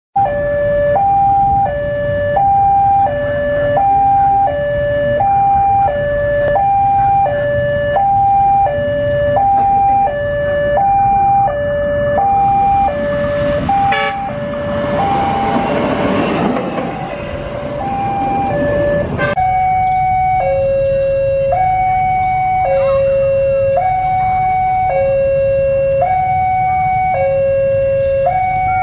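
Electronic railway level-crossing alarm sounding a two-tone high-low warning that alternates about every 0.7 s. A rushing noise swells and fades in the middle. About two-thirds of the way through, the alarm changes to a slower high-low alternation.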